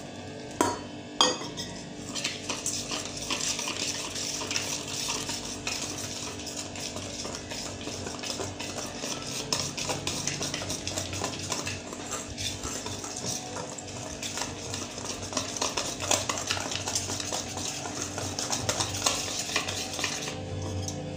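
Wire balloon whisk beating besan (gram flour) dhokla batter in a stainless steel bowl: a fast, continuous scraping and clinking of wire against steel that stops just before the end. Two sharp metal clinks come about a second in, as the water goes in.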